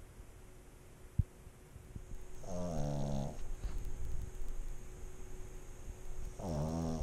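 A sleeping pug snoring: two drawn-out, pitched snores under a second each, about four seconds apart, the second near the end. A single sharp click comes about a second in.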